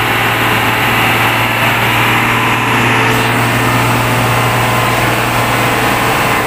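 Ready-mix concrete truck's diesel engine running close by: a loud, steady drone with a constant low hum underneath.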